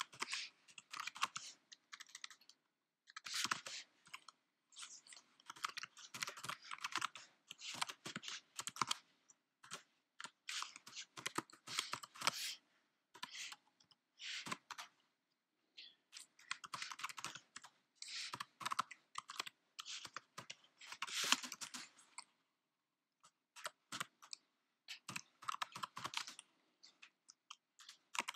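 Typing on a computer keyboard, rapid key clicks in runs of a few seconds, broken by short pauses of about a second.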